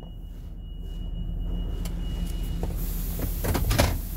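Car wash water jets spraying under a cargo van, heard from inside the cabin over the van's engine running low; a hiss comes in about two-thirds of the way through, with a few knocks near the end.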